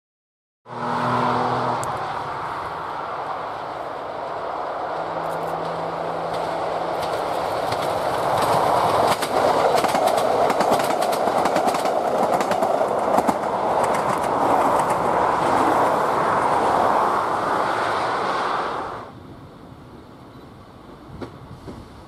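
ScotRail Class 153 and Class 156 diesel multiple units passing at speed. Their underfloor Cummins diesel engines drone at first, then growing wheel and rail noise with clickety-clack over rail joints builds as the train goes by. It cuts off suddenly about nineteen seconds in, leaving faint outdoor ambience.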